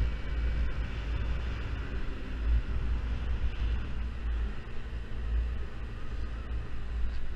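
Small Yamaha Zuma 50cc scooter engine running steadily while riding, under a heavy, uneven wind rumble on the microphone.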